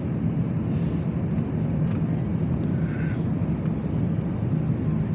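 Airbus A350 jet engines, a steady low rumble.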